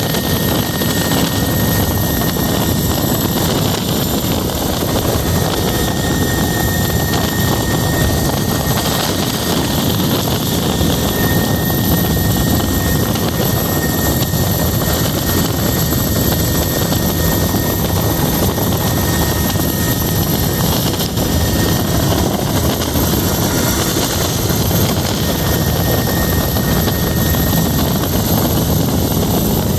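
Helicopter rotor and engine noise heard from on board, loud and steady throughout, with a thin high whine held at one pitch.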